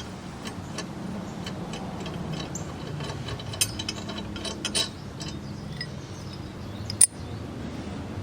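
Socket wrench ratchet clicking in irregular runs as the mower blade bolt is backed off, with a single sharp metal clink near the end.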